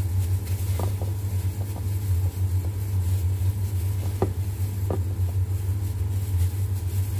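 A steady low mechanical hum runs throughout. A few faint soft taps come from gloved hands handling the vegetables.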